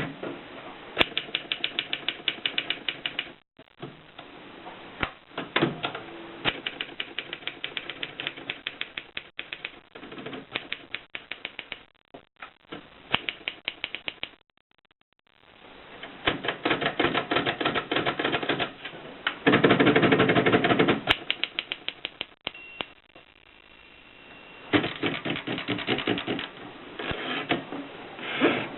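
Torpedo manual typewriter being typed on: runs of rapid key strikes, several a second, broken by short pauses, with about a second of silence midway.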